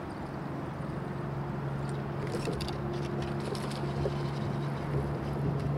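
A steady low electric-motor hum, from the kayak's motor, sets in just after the start and runs on. About two seconds in there is a short run of quick clicks as the fishing reel is worked.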